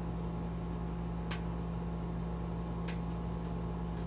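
Microwave oven running: a steady low hum, with two faint ticks about a second and a half in and near three seconds.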